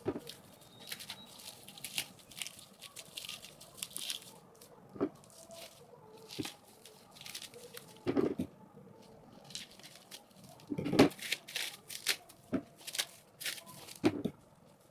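Packaging of a wireless doorbell being unwrapped by hand: irregular crinkling and tearing of the wrapping, with louder bursts about eight, eleven and fourteen seconds in.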